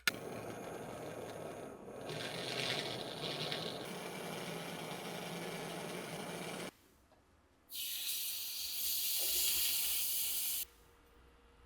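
Two spells of hissing noise: a rushing hiss for the first six or so seconds, then after a short pause a sharper, higher hiss for about three seconds that cuts off suddenly.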